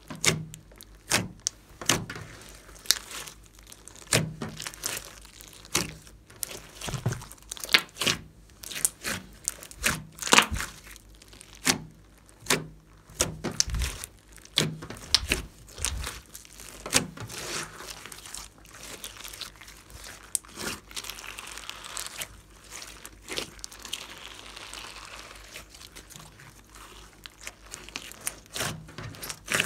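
Hands squeezing, pressing and stretching a big batch of glossy slime mixed with floam, giving irregular sharp pops and crackles. The crackling turns softer and more continuous in the middle as the slime is pulled.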